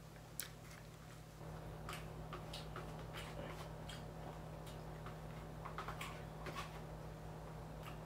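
Faint eating sounds: a metal fork clicking and scraping against a plate and chewing, in scattered irregular ticks. A low steady hum comes in about a second and a half in.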